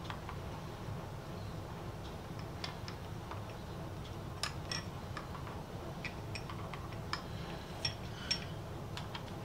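Hand-cranked Miller Falls #120 breast drill turning on its high-speed gear, its bit cutting a hole through 1/8 inch steel: irregular light metallic ticks and clinks over a steady low hum.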